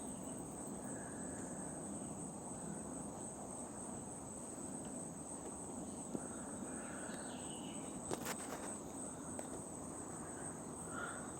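Steady high-pitched insect chorus, a continuous trill like crickets, with a sharp click about eight seconds in.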